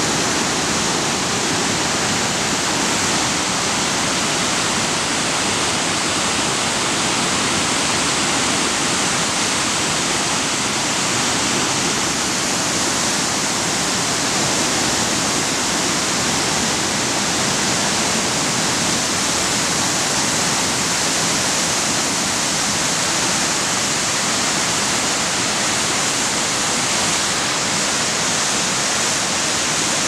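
Gullfoss waterfall on the Hvítá river: a steady, loud rush of whitewater pouring over the falls and churning below.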